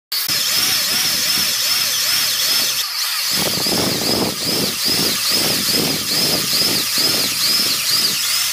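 Electric drill boring through a steel plate: a steady motor whine, with the grinding of the bit in the steel pulsing about twice a second from about three seconds in.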